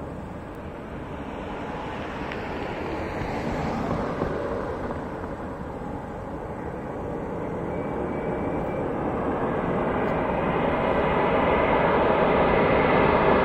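Four-engined Airbus A340 jet airliner approaching to land: a steady engine rumble and roar growing gradually louder as it comes in.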